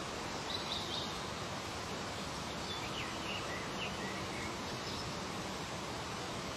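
Steady outdoor background hiss with a few faint, short bird chirps.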